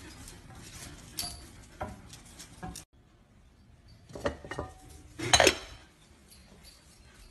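A ceramic dog-treat jar clinking and clattering as a hand reaches in for treats. Scattered sharp clicks come first, then ringing clinks and a louder clatter a little over five seconds in.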